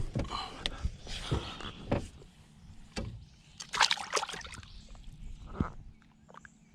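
Water splashing and sloshing with a few knocks from handling, as a caught bass is put back over the side and released; the loudest splashing comes about four seconds in.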